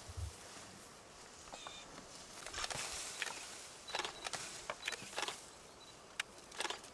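African elephant browsing at close range: leaves rustling and twigs snapping as it tears leafy branches from the bushes with its trunk, in scattered bursts with a few sharp cracks.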